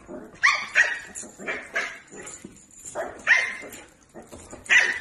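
A dog barking in short, sharp, high barks, mostly in quick pairs, about seven in all.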